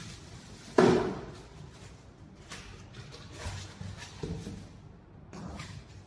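Clear plastic wrapping and packing foam being handled and pulled off a boxed coffee machine, crinkling and rustling, with one sharp, loud handling noise about a second in and a few smaller knocks after.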